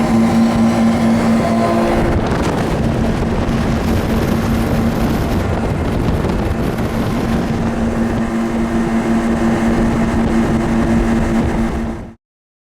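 The twin engines of a 2015 Yamaha 242 Limited S jet boat running steadily at speed: a steady engine hum over a dense rush of wind and water noise. The sound cuts off suddenly near the end.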